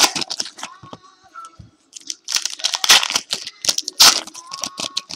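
Trading-card pack wrappers being torn open and the cards handled, crinkling and tearing in several short bursts.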